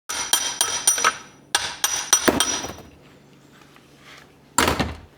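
Hammer blows on a brass punch driving the reverse gear's shaft out of a Borg Warner T19 transmission case: sharp metallic strikes with a ringing tone, in two quick runs of several blows and then a single blow near the end.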